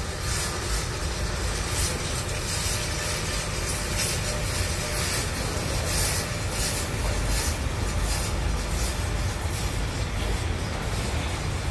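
A freight train of tank wagons hauled by an electric locomotive rolling past, giving a steady rumble of wheels on the rails with a high rushing hiss that swells briefly every so often.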